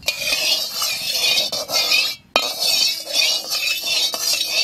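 Mustard oil heating in an aluminium wok, sizzling loudly, with a metal spatula clinking and scraping against the pan. The sound cuts out briefly about two seconds in.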